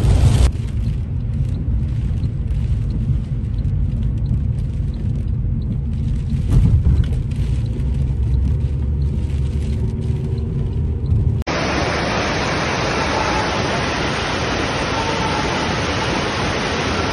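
Low, steady rumble of a car driving in heavy rain, heard from inside the cabin. About eleven seconds in it cuts abruptly to the steady hiss of rushing floodwater.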